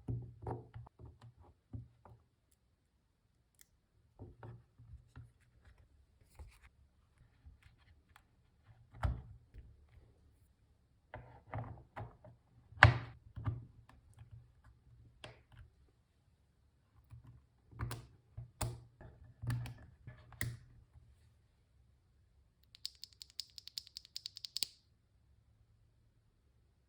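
Keystrokes on an Akko MU02 mechanical keyboard with lubed HMX Caramel Pudding switches, an FR4 plate and rubber keycaps: scattered, irregular presses with pauses between them. Near the end comes a rapid run of sharper, higher clicks lasting about two seconds.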